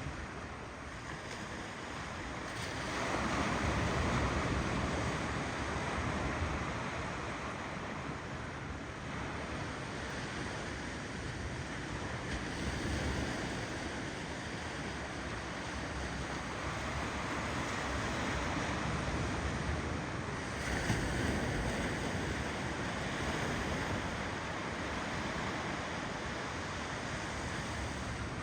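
Ocean waves rolling in and breaking as continuous surf, with a larger wave surging up about three seconds in and another about twenty-one seconds in.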